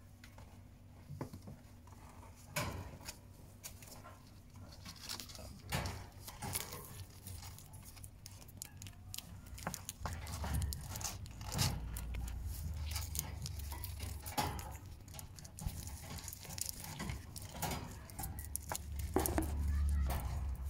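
Scattered taps, clicks and rustles from a wire pet cage as kittens move about inside it, with a low rumble of handling noise on the phone microphone from about halfway.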